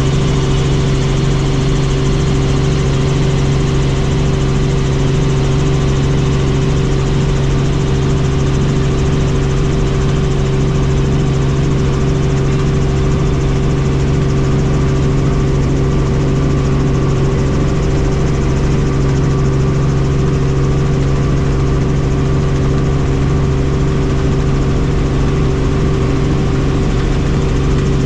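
Helicopter in flight: the steady drone of its engine and rotor, a constant low hum with a second steady tone above it, unchanging throughout.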